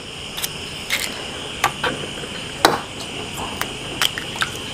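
Hen's eggshells being cracked and picked apart by hand over a ceramic bowl: a few sharp, irregular clicks. Underneath runs a steady high chirring of night insects.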